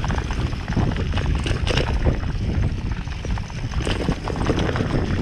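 Bicycle rattling and knocking over a rough dirt trail, with irregular sharp knocks from bumps and roots over a steady low rumble of tyres and wind on the microphone.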